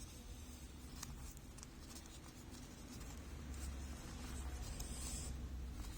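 Faint rubbing and rustling of hands handling fabric and small metal rivet parts, with a few light ticks over a low rumble.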